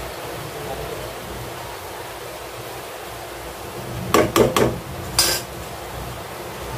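A metal utensil clanking against a cooking pot while stirring sweet vermicelli: a quick run of three clanks about four seconds in, then one more a second later, over a steady hiss.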